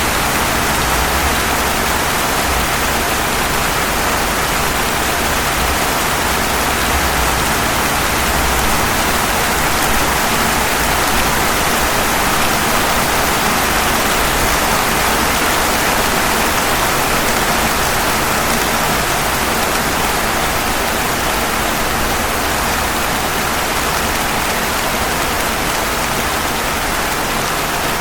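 Steady rain falling on pavement, an even, unbroken hiss.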